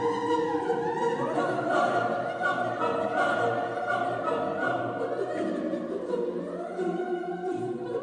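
Background classical music: a choir singing with orchestra.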